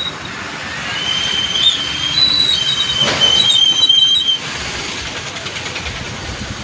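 Steady rushing noise of a river in flood, with a high, two-pitched squeal coming in about a second in and holding for some three seconds before it stops.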